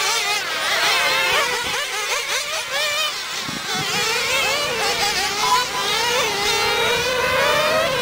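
Several 1/10 scale nitro on-road RC car engines racing at high revs, their pitches constantly rising and falling as the cars accelerate and brake around the track. A short steady beep comes about two-thirds of the way in.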